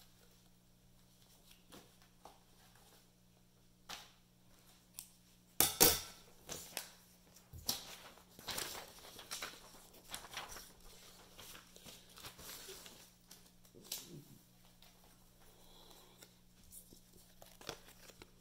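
Thin box cardboard being handled: scattered rustles, scrapes and clicks, the loudest cluster about six seconds in and more through to about fourteen seconds. A faint steady low hum runs underneath.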